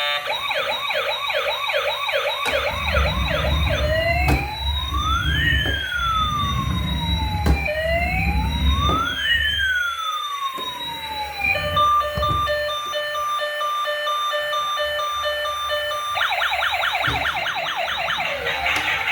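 Electronic siren of a toy emergency vehicle cycling through its tones: a fast warble, then two slow sweeps rising and falling, then a steady pulsing beep for a few seconds, then the fast warble again. A low rumble runs underneath during the first half.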